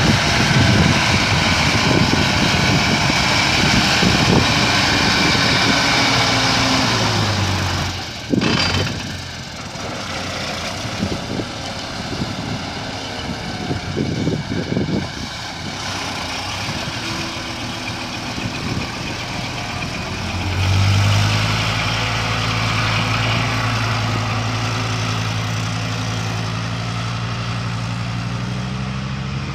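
Vehicle engine running and rumbling. The engine note drops about eight seconds in and runs lower and more unevenly, then rises to a steady, even note about two-thirds of the way through.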